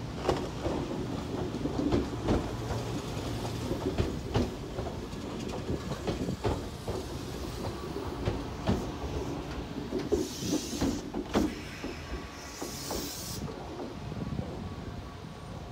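Nagano Electric Railway 1000 series 'Yukemuri' electric train (a former Odakyu 10000 HiSE) rolling slowly into the platform, its wheels clacking irregularly over rail joints and points over a low rumble. Two short hisses come a little after ten seconds and again around thirteen seconds.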